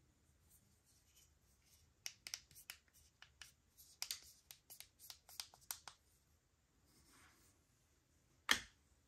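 Faint handling sounds of product packaging being unpacked: a quick flurry of small sharp clicks and crinkles between about two and six seconds in, then a single louder tap or knock near the end.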